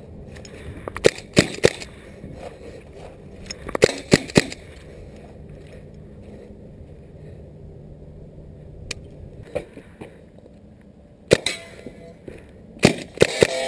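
Shots from an air-powered rifle, sharp pops in quick groups: three in a fast string about a second in, three more around four seconds, then single shots and a final pair near the end.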